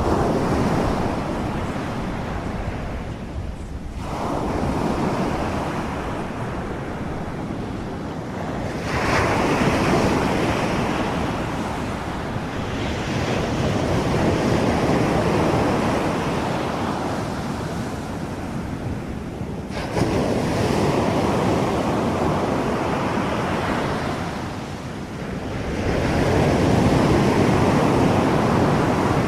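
Ocean surf: a steady rushing of waves that swells and fades every few seconds as they wash in and draw back.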